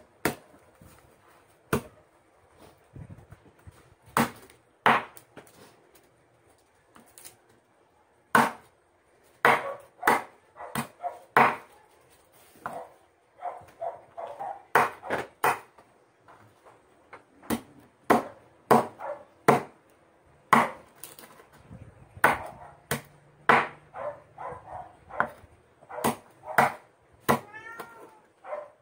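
Large kitchen knife chopping grilled pork belly on a wooden cutting board, in irregular sharp strikes. Near the end, a cat meows.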